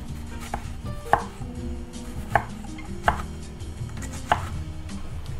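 A knife dicing a Vidalia onion on a wooden cutting board: several sharp knocks of the blade striking the board, spaced about a second apart.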